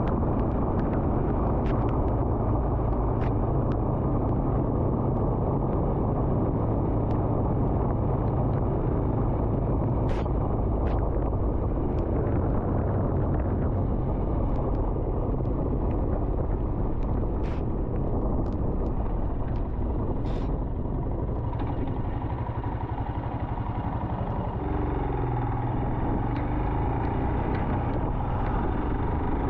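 Royal Enfield Himalayan's single-cylinder engine running at steady road speed, under heavy wind rush and tyre hiss on the wet road, with a few faint ticks.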